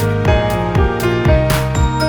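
Music with a steady beat and sustained pitched notes, joined near the end by high bell-like chimes.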